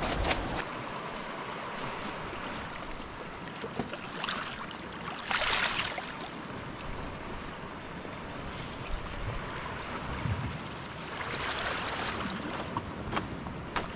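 Small waves lapping on a pebble shore with wind, an even rush of noise that swells louder briefly about five seconds in and again near the end.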